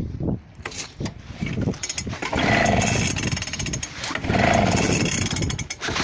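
Suffolk small petrol engine being cranked over repeatedly without firing: two rough mechanical cranking runs of about a second and a half, about two seconds apart, with a third starting at the end. The engine will not start.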